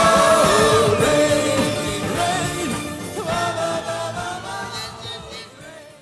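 Closing bars of a pop song, fading out steadily.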